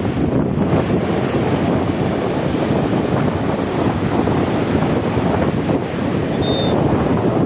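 Sea waves washing, with wind buffeting the microphone in a steady, loud rumble. A brief high squeak sounds once, about six and a half seconds in.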